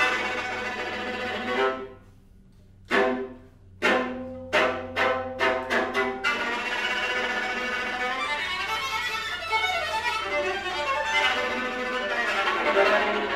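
String quartet playing contemporary music: a held chord breaks off, then a string of sharp, accented chords comes faster and faster and runs into a dense, busy passage of many quick notes.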